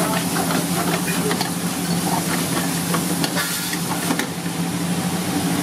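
Chicken curry sizzling in a kadai on a gas burner while a steel ladle stirs it, scraping and clinking against the pan a few times. A steady low hum runs underneath.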